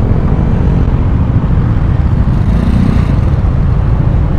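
Motor scooter engines idling while stopped, a steady low rumble.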